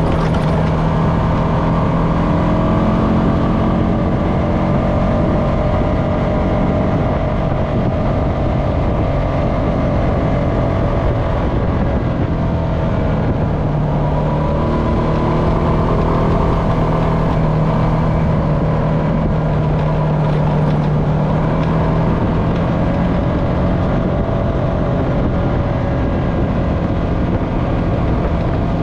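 Honda FourTrax Foreman ATV's single-cylinder four-stroke engine running steadily while under way on a dirt trail, its pitch rising and falling gently with the throttle.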